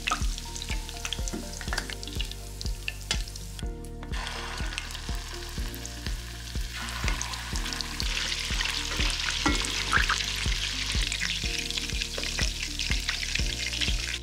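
Beef meatballs sizzling as they shallow-fry in hot oil in a stainless steel pot, turned now and then with tongs and a wooden spatula. The sizzle grows louder and brighter about seven to eight seconds in.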